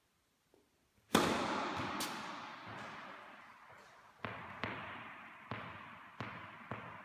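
Tennis serve: the racket hits the ball loudly about a second in, the sound echoing around an indoor tennis hall, with a second smack about a second later as the ball lands. Then a tennis ball is bounced on the hard court five times before the next serve, each bounce echoing.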